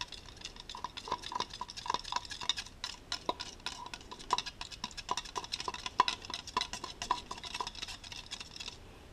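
A thin metal stirring rod clicking and scraping against a plastic cup while two-part polyurethane casting resin is mixed: a fast, uneven run of light ticks that stops near the end.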